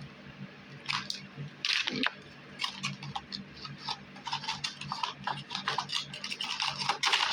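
Shredded Easter basket grass being handled, crinkling and rustling in irregular bursts, with louder crackles about two seconds in and near the end.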